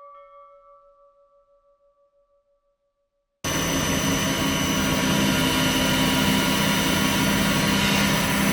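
A bell chime fades away over the first few seconds. After a short silence, a steady machine noise cuts in suddenly: a Sheffield TF1004 cylindrical grinder running, with a steady high whine over a low hum.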